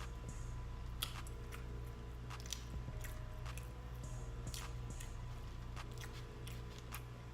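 Close-miked chewing of food: wet, squishy mouth sounds with sharp clicks every second or so.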